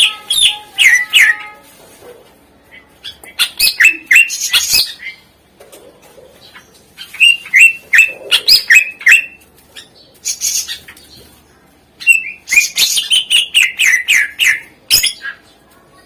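Cucak ijo (green leafbird) singing its mimicry-filled (isian) song: bursts of rapid, downward-slurred whistled notes, four main phrases about a second or two long with short pauses between.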